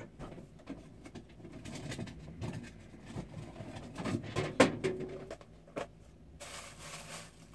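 Scattered knocks, clicks and rustles of household objects being handled, the sharpest knock a little past the middle; a steady hiss comes in near the end.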